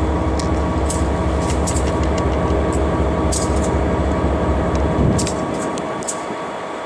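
Diesel locomotive running, heard from inside its cab: a deep steady drone under a rumbling rattle, with scattered sharp clicks. About five seconds in, the deep drone drops away and the sound gets a little quieter.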